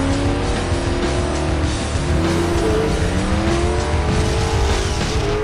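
Race car engine revving with tyre squeal, laid over music as produced sound effects. The engine pitch rises and falls.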